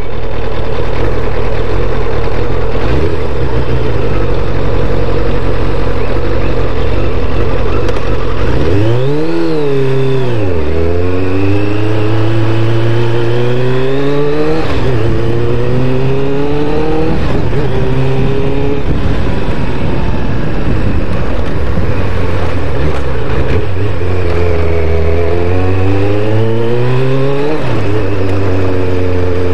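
1998 Kawasaki Ninja ZX-7R's inline-four engine under way, its pitch rising as the bike accelerates and then dropping sharply at each gear change, several times, with steadier cruising between.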